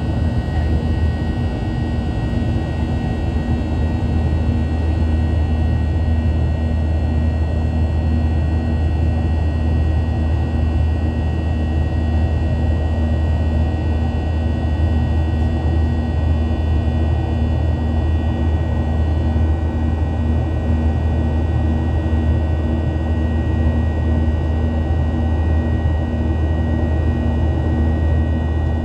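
Cabin noise of a Boeing 737-800 in flight: a steady, loud rumble of engine and airflow with a constant high whine from its CFM56-7B turbofans, unchanging throughout.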